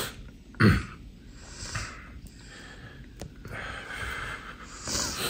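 A man sniffing and breathing audibly through his nose while choked up with emotion, with a sharp sniff a little under a second in and a longer breath near the end.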